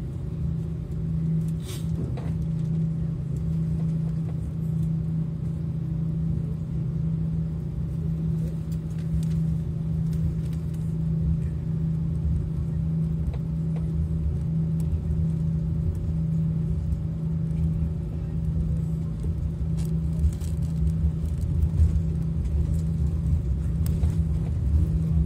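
Airbus A340 airliner heard from inside the cabin while taxiing: a steady low engine hum with a constant drone, over a low rumble, with a faint click about two seconds in.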